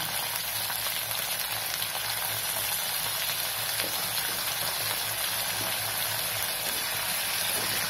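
Sesame oil sizzling steadily in an aluminium kadai as slit whole brinjals fry in it.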